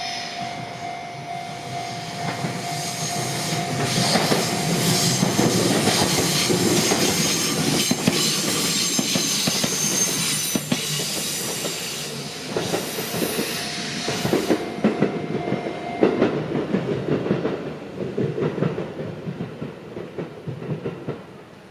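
Electric train on the Minobu Line passing over a level crossing: steady running noise with wheels clacking over the rail joints and some high wheel squeal, louder in the middle and fading near the end. A level-crossing warning signal's steady tone sounds for the first few seconds.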